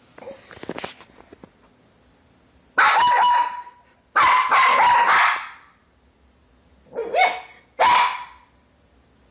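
Puppy barking: two drawn-out barks, the second over a second long, then two short ones.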